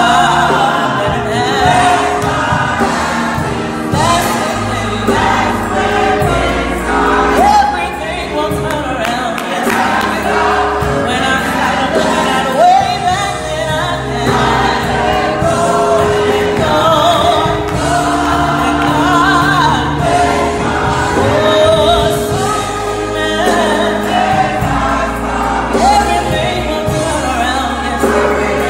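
Gospel choir singing with a female lead vocal, over an electric guitar's low bass notes that change every second or two.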